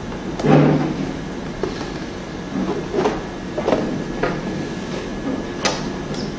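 Acrylic panels of an LED photo light box knocking and scraping against each other as the back panel is fitted into the frame: a series of irregular light knocks, the loudest about half a second in.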